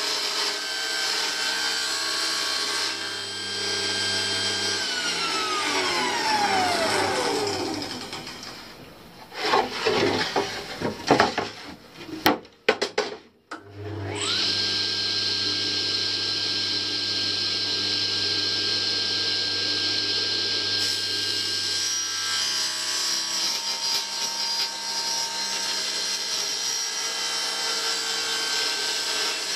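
Table saw running with a steady whine, switched off about five seconds in and winding down with a falling whine. A few knocks follow as the plywood board is moved, then the saw is switched back on and spins up quickly to a steady whine as the blade cuts through the plywood sheet.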